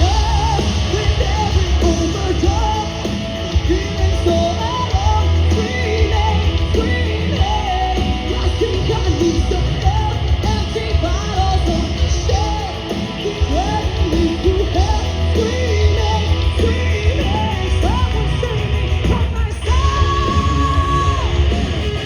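A live hard rock band playing loudly, with heavy drums and bass, distorted guitars and yelled vocals, ending on a long held note.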